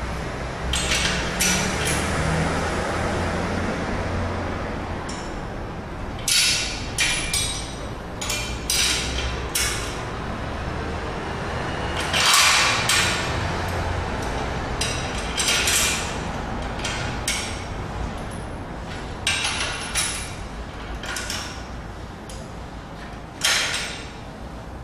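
Irregular sharp metallic clinks and taps in scattered clusters, the loudest about halfway: spanners working against nuts and bolts on the steel frame of a Powertec leg sled as they are tightened.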